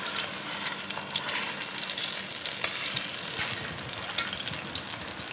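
Slab of pork belly sizzling and crackling in hot oil in a stainless steel pot, with a couple of sharper clicks past the middle.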